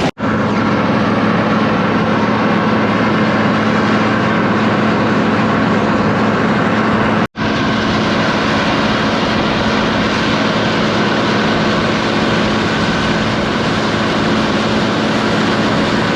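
Steady engine and machinery drone of a harvest machine heard from inside its cab, with a constant low hum and even noise throughout. The sound breaks off for an instant twice, about seven seconds apart.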